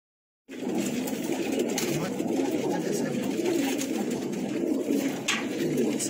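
Many domestic pigeons cooing continuously, their calls overlapping, with a few light clicks over them. The sound starts about half a second in.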